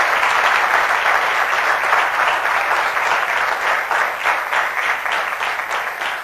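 Audience applauding, dense at first and thinning into more separate claps toward the end as it slowly dies down.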